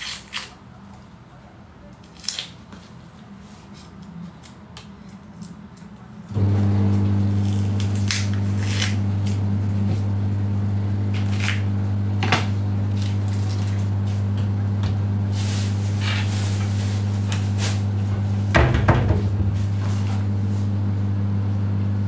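Dry onion skin crackling and a knife clicking as an onion is peeled by hand. About six seconds in, a steady low electrical hum starts abruptly and holds, louder than the peeling.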